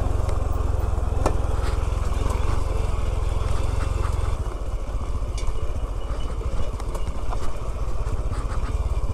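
Honda CT125's single-cylinder four-stroke engine running as the bike rides along a rough dirt track, with a heavy low rumble that eases about four and a half seconds in. A few sharp knocks along the way.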